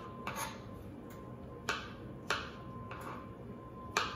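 Kitchen knife chopping ripe strawberries on a wooden cutting board: four sharp taps of the blade on the board, spaced unevenly.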